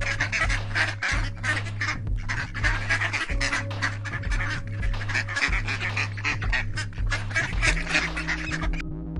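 A flock of birds calling rapidly and continuously, many overlapping duck-like calls, over steady background music.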